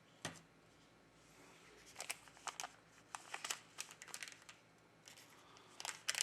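Faint crinkling and small sharp clicks of plastic being handled on a phone-repair bench: one click just after the start, then scattered crackles from about two seconds in that grow busier near the end.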